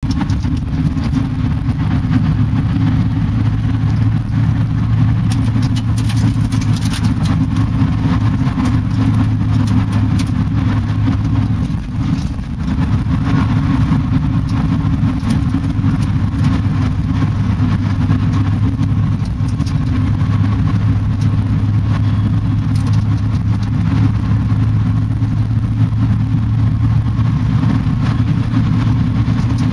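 Steady low road and tyre rumble with a constant hum, heard inside a car being towed along a road; it eases briefly about twelve seconds in.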